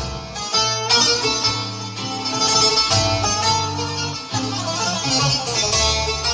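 Korg Pa5X arranger keyboard playing an arrangement with a plucked-string lead over a sustained bass line and drums.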